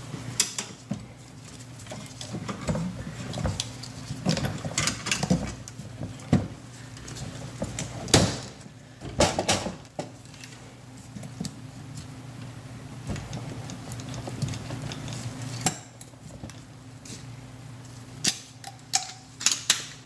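Clicks, knocks and clatter of a plastic dishwasher pump-and-motor assembly being handled and fitted into the machine's base, irregular, with a few louder knocks. A low steady hum runs underneath.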